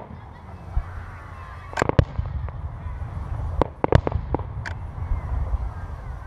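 Aerial fireworks shells bursting in a scattered series of sharp bangs, several close together about two seconds in and again around four seconds in.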